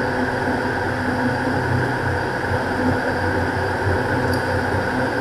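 Steady drone of a Beechcraft King Air's twin turboprop engines and propellers with airflow hiss, heard inside the cockpit in flight.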